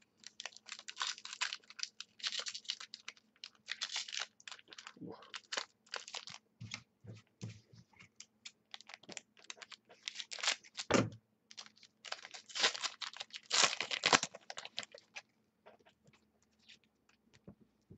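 Trading card pack wrapper crinkling and tearing, and cards rustling as they are handled and shuffled through, in quick irregular crackles that thin out to a few faint ticks over the last few seconds.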